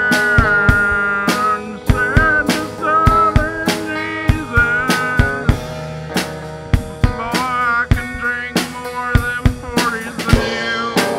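Instrumental break of a folk song: a drum kit keeps a steady beat under a lead melody line that bends and wavers in pitch.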